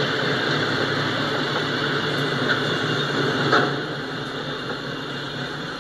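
Autorack freight cars rolling past, with the steady noise of steel wheels on rail. A single sharp clank comes about three and a half seconds in, after which the sound eases a little.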